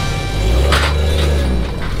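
Lifted Jeep Cherokee's engine pulling under load as it climbs up onto a flatbed trailer without ramps, swelling for about a second, over rock music.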